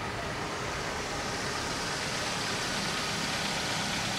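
Steady rumble of vehicle engines at a level crossing with its barriers down, slowly getting a little louder.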